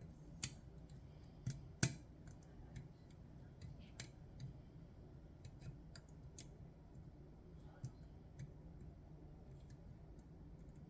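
Irregular small metallic clicks and ticks from a pick and tension tool working the levers of a Chubb GPO No.6 six-lever lock, with several louder clicks among fainter ones.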